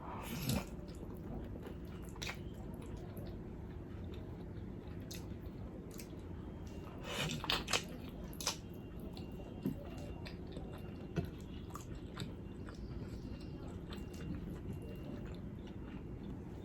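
A person chewing food, with scattered short mouth smacks and clicks, a small cluster of them about halfway through, over a steady low hum.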